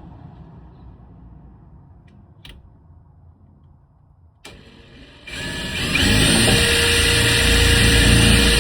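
Cordless drill driving a self-drilling tek screw into a van door's sheet metal: two faint clicks, then the motor spins up about five seconds in and runs steadily with a high whine.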